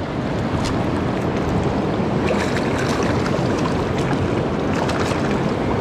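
Steady rush of fast-flowing river water, an even noise that holds level throughout.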